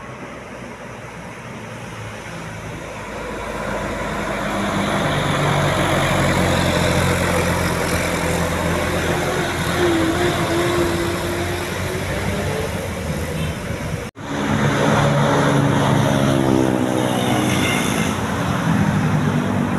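Tour bus engines passing in road traffic. One grows louder over the first several seconds, then after an abrupt cut about fourteen seconds in another loud passing vehicle follows.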